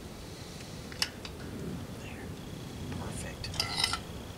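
Knife and fork clicking and clinking against plates as food is cut and served: a couple of sharp clicks about a second in, and a quick cluster of clinks near the end, under quiet murmured voices.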